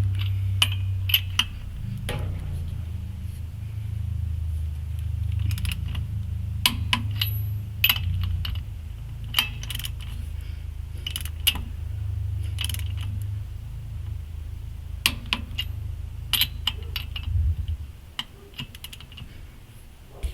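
A low, steady rumble with many light metallic clicks and clinks scattered over it; the rumble fades out about three seconds before the end.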